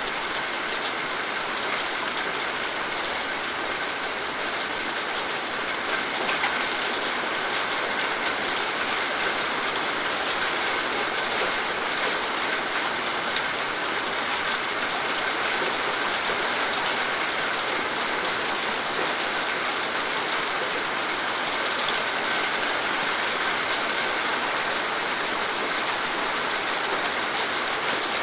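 Steady rain falling and pattering on surfaces, with scattered individual drops ticking.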